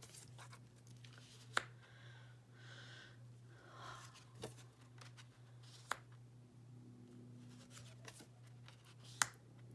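Tarot cards being slid off a deck and laid down one at a time: soft sliding and rustling of card stock with three sharp clicks, about one and a half, six and nine seconds in. A steady low hum runs underneath.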